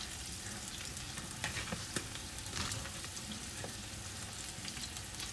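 Beef smashburger patties sizzling steadily in a frying pan, with a few short sharp crackles a couple of seconds in.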